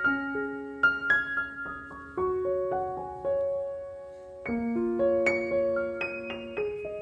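Background piano music: a slow melody of struck notes over held low chords.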